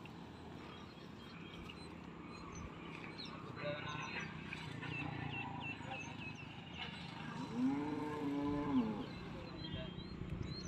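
A cow mooing once, a single drawn-out call of about a second and a half, in the second half, with small birds chirping faintly.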